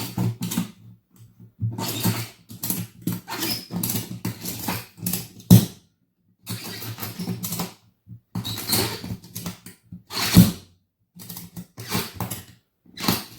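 Ratchet strap being cranked tight around a tire in a run of short, uneven ratcheting strokes with brief pauses. The strap squeezes the tire so that both beads meet the rim for seating.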